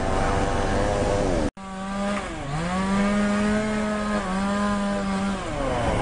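Chainsaw engine running at high revs, its pitch sagging as the chain bites into a fallen tree and climbing back, with a second brief dip. There is a short break in the sound about a second and a half in.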